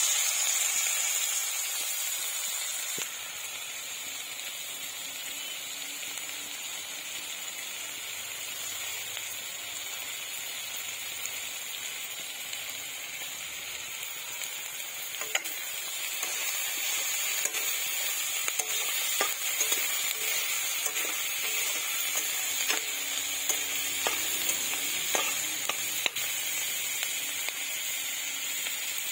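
Chopped onions sizzling in hot oil in an iron kadai, a steady hiss. From about halfway, stirring adds scrapes and clicks against the pan.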